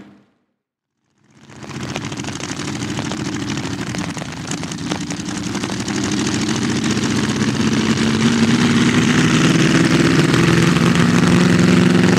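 Streamliner C-16's inline 16-cylinder engine, built from two Buick straight-eights joined end to end, running as the car drives by. After about a second of silence near the start, the engine fades in and grows steadily louder, its note rising slightly near the end.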